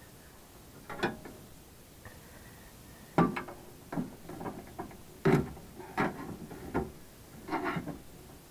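Irregular light clicks and knocks, about seven of them and most in the second half, from hands working among the metal parts and wiring of an open Atwood RV gas furnace.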